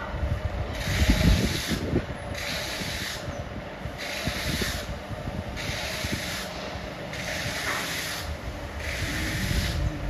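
A plastering trowel scraping over a cement-plastered wall in about six even strokes, each under a second long, coming every second or so, over a steady low rumble.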